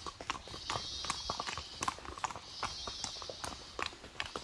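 A horse's hooves clopping on a trail at a walk, several irregular hoof strikes a second, with a high hiss that swells and fades about every second and a half.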